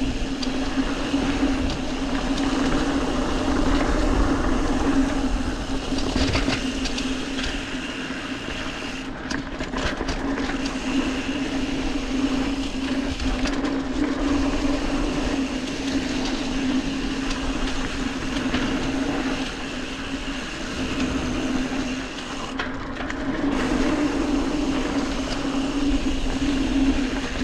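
Mountain bike rolling down a dirt singletrack: knobby tyres on packed dirt and fallen leaves, the bike rattling over bumps, with a steady buzzing hum.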